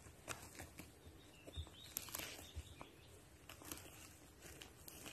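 Faint, scattered rustling and small clicks in woodland leaf litter and twigs, with no steady sound behind them.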